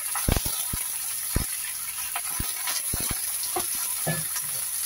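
Hot oil in a wok sizzling as wet sawi (mustard greens) are tipped in: a steady hiss with scattered sharp pops and crackles.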